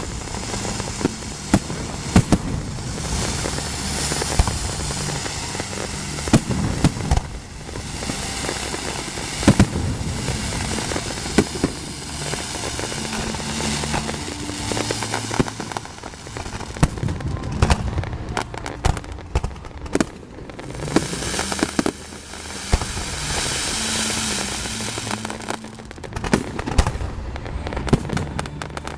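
Aerial fireworks bursting again and again throughout, sharp bangs with swells of crackling.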